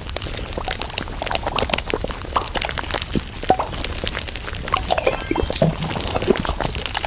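Groceries being handled and put away in a fridge: a busy run of small clicks, knocks and packaging rustles.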